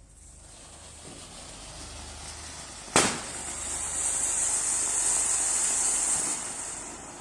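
Diwali firecrackers: a hiss builds, a single sharp bang goes off about three seconds in, then a loud, high, steady hiss of burning fireworks that fades near the end.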